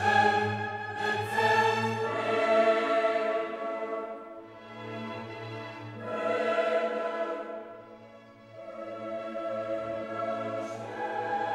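Background classical music: choir and orchestra holding sustained chords that swell and fade.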